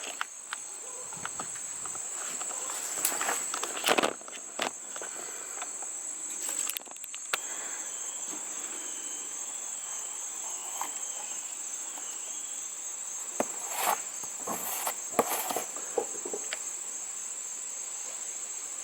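Crickets chirring steadily and high-pitched throughout, with scattered knocks and clicks of handling, loudest about four seconds in and again near fifteen seconds.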